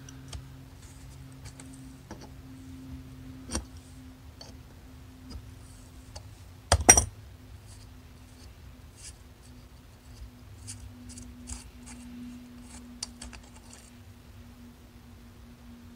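Small metallic clicks and ticks of an adjustable wrench and fingers working the brass needle jet holder loose from an aluminium Mikuni two-stroke carburetor body, with one louder clack about seven seconds in, over a faint steady hum.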